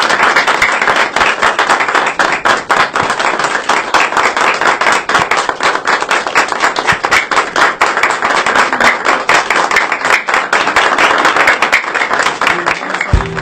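A small group of people applauding, many hands clapping steadily together.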